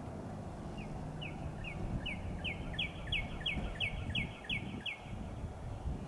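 A songbird singing a run of about a dozen quick whistled notes, each sliding downward, about three a second, growing louder over the first couple of seconds and stopping about five seconds in.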